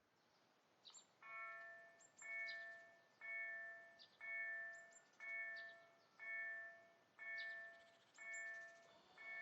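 Level-crossing warning bell starting up about a second in and then striking steadily about once a second, each ring fading before the next. This is the crossing signal warning of an approaching train. Brief bird chirps sound between the strikes.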